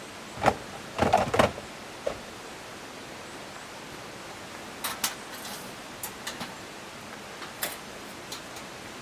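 A few sharp knocks and clatters in the first two seconds, the loudest cluster about a second in, then scattered lighter clicks, over a steady rushing hiss of running river water.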